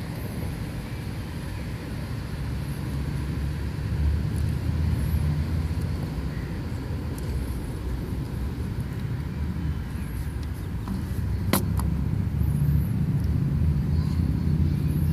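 A steady low outdoor rumble, with one sharp click about eleven and a half seconds in as the camera body and lens board are handled.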